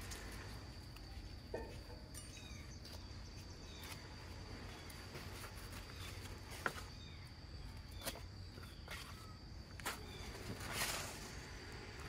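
Outdoor ambience: a steady high insect note, a few faint bird chirps, and scattered sharp clicks and knocks, the loudest about two-thirds of the way through. A short rustle comes near the end.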